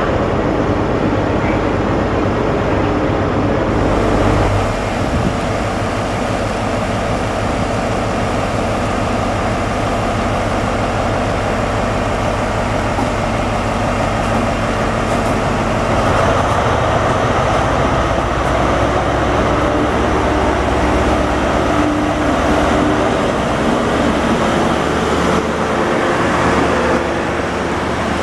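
Class 43 HST power cars' MTU diesel engines running, then growing louder from about halfway as the train pulls away, with the coaches rolling past on the rails.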